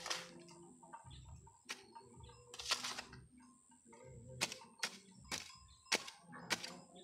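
Long-handled hoe chopping into dry, stony soil as the ground is tilled, about eight sharp strikes at uneven intervals, coming faster in the second half.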